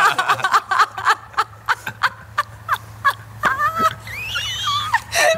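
A woman and a man laughing hard in quick, rhythmic bursts, with a high, wavering laugh about four seconds in.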